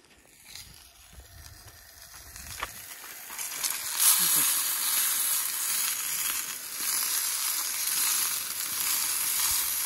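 Sausages sizzling in a frying pan on a Coleman camp stove. The sizzle grows louder until about four seconds in, then holds steady.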